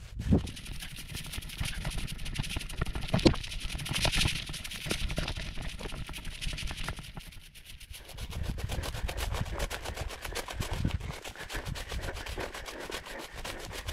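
Hurried footsteps through dry, matted prairie grass: a continuous rustling and crackling as stalks brush and crunch underfoot.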